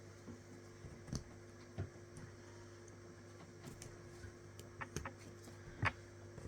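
Scattered small clicks and taps of a latch hook tool working yarn into rug canvas, irregular, a few close together past the middle and the sharpest near the end, over a steady low hum.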